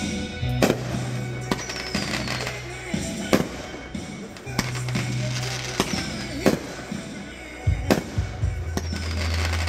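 Aerial firework shells bursting in a string of sharp booms, about a dozen, several in a quick cluster near the end, with a couple of falling whistles. Music plays underneath.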